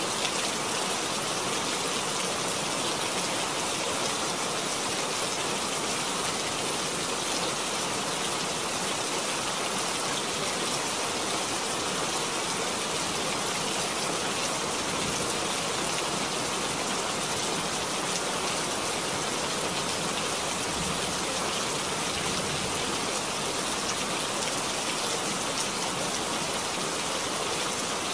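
Steady rain falling: an even hiss of many drops that never lets up or changes in strength.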